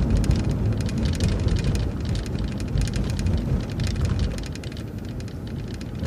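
Steady low rumble of a transit bus driving along, with a fine crackle of road noise and rattles over it, easing off a little about four seconds in.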